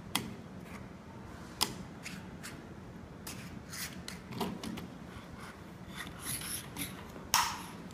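Plastic twist-lock collars on a telescopic pole being turned and handled: scattered clicks and short rubs of the grips, with sharp clicks about a quarter second and a second and a half in, a cluster of small clicks around the middle, and a louder click with a brief rub near the end.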